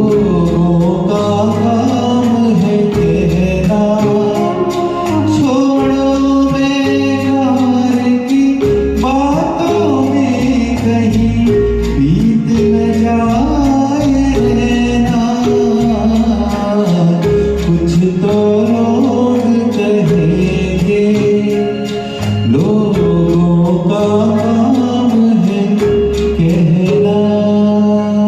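Song performance: a singing voice carries a gliding melody without clear words over a backing track of steady bass chords and light, regular percussion.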